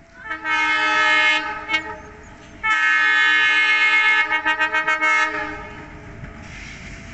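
Diesel locomotive's multi-tone air horn sounding as the train approaches. A blast of about a second and a short toot are followed by a longer blast of about two and a half seconds that breaks into quick short toots at its end. After that comes the low rumble of the oncoming train.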